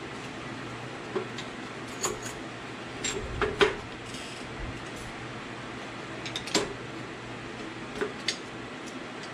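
Metal parts clinking and knocking as the carrier and its shims are worked into a Ford 8.8 differential housing during backlash setup. The clinks are short and scattered, with the loudest cluster about three and a half seconds in and another about six and a half seconds in, over a steady hum.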